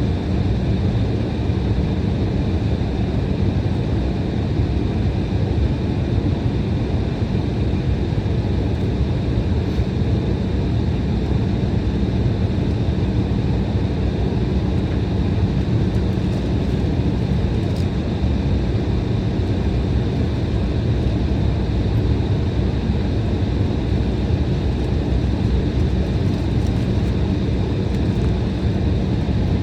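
Cabin noise inside an Embraer E175 airliner with its CF34 turbofan engines running at a steady setting: a constant rumble and hiss with a steady low hum and a few faint high tones.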